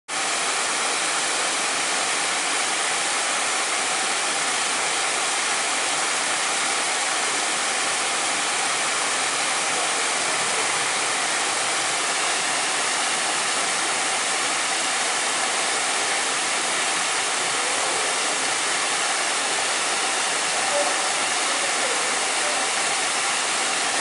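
Small tiered waterfall splashing over rocks into pools: a steady, even rush of falling water, mostly hiss with little low rumble.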